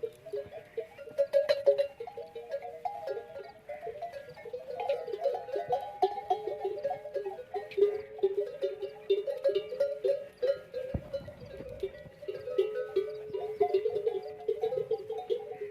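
Neck bells on a flock of camels clanking irregularly as the animals move: a dense jangle of many short, overlapping ringing notes. A brief low rumble comes about two-thirds of the way through.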